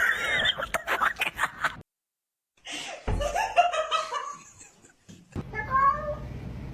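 A person laughing in quick bursts, then after a short break a cat meowing, a few short calls near the end.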